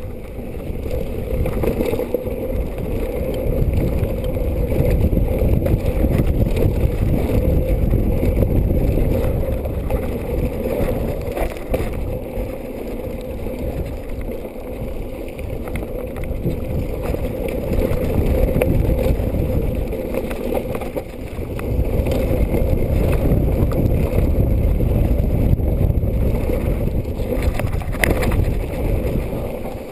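Mountain bike descending a dirt and gravel trail at speed: wind rushing over the camera microphone, tyres rolling over loose stones and the bike rattling over bumps. Louder over two long stretches.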